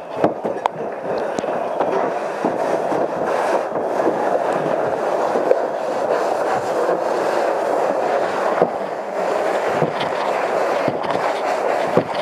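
Interior house fire burning: a steady rushing noise with many sharp crackles and pops throughout.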